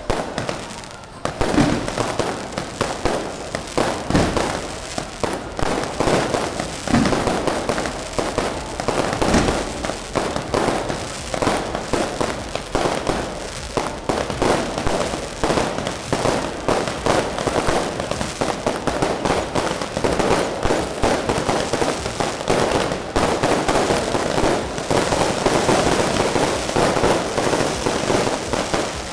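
Fireworks and firecrackers going off in a dense, continuous crackle of rapid bangs, with a few heavier booms in the first several seconds.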